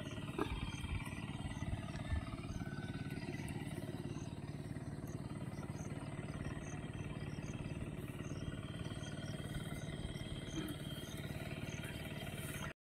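A steady low motor hum with wind rumbling on the microphone and faint high chirps over it, cutting off abruptly near the end.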